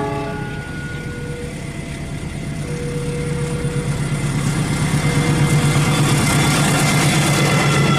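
Diesel engine of a CC206 diesel-electric locomotive approaching, a steady low drone that grows louder through the second half. Thin high ringing tones join it over the last few seconds.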